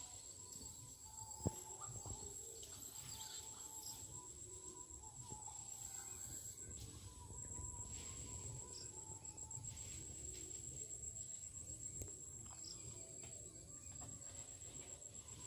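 Quiet forest ambience: a steady, high, finely pulsing insect trill runs throughout, with scattered bird chirps and a low wind rumble. A single sharp click sounds about a second and a half in.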